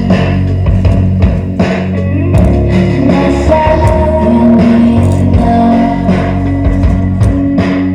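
Music with guitar, a heavy bass line and regular drum hits.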